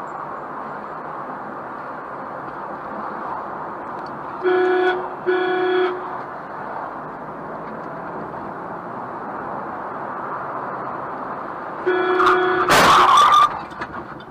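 Steady road and engine noise inside a moving car, with two short car-horn honks about five seconds in. Near the end the horn sounds again and is cut off by a loud crash lasting under a second, the sound of a collision.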